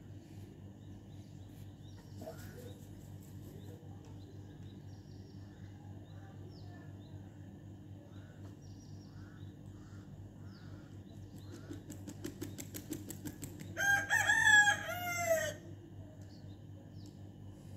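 A rooster crows once, loudly, about fourteen seconds in, a drawn-out call in several bending notes. It comes just after a second or two of rapid clicking. Faint chirps of small birds and a steady low hum sit underneath.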